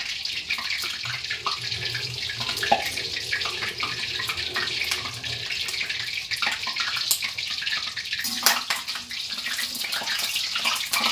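Kitchen tap running steadily into the sink, with dishes and utensils clinking now and then.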